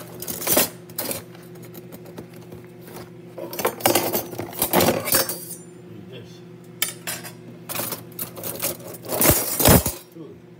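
Metal cutlery clinking and rattling in a plastic drawer organiser as a spoon is rummaged for, in several separate bouts. Near the end comes a heavier knock.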